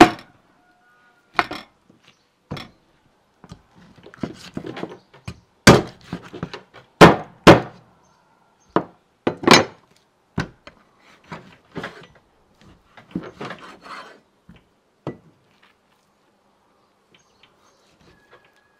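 A string of irregular knocks and thuds on wood, with a few heavy blows in the middle and lighter knocks and shuffling between them.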